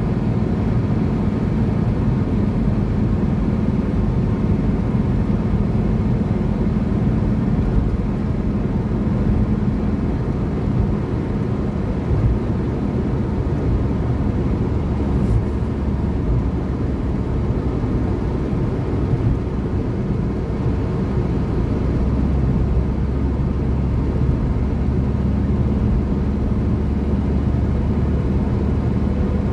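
Steady low rumble of engine and tyre noise inside a car's cabin while it drives along a highway. The low drone deepens slightly about three-quarters of the way through.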